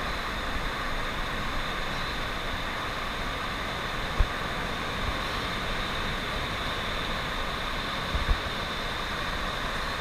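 Steady rushing wash of ocean surf breaking on a sandy beach, with a low rumble underneath and two brief low thumps about four and eight seconds in.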